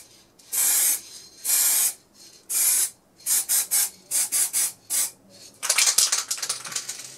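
Aerosol can of matt varnish spraying in bursts. First come three separate sprays of about half a second each, then a run of short, quick puffs, then one longer spray near the end.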